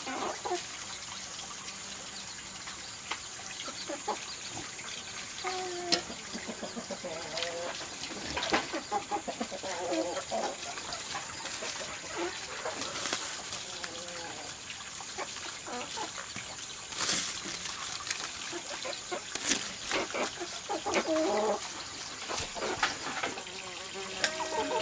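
Chickens clucking in short calls, heard several times, over the rustle and light knocks of lemongrass stalks, ginger and leaves being laid on coarse salt in a metal pot.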